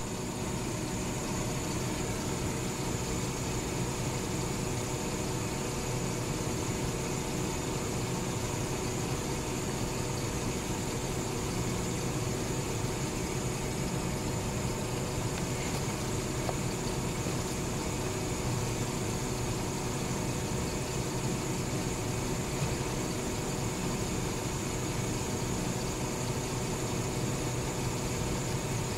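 Garbage truck engine idling steadily, an even mechanical hum with no change in level.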